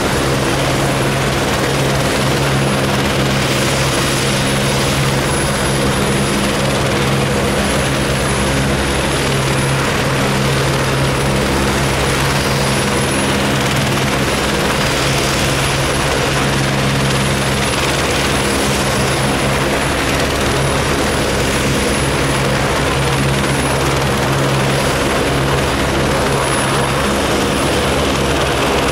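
Helicopters running on the ground with rotors turning: a steady engine and rotor hum with a fast, even rotor beat underneath.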